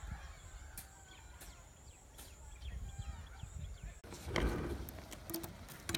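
Birds calling in the open, short chirps over a steady high hiss and a low rumble. About four seconds in, the sound changes abruptly to a louder rustle and a few sharp knocks.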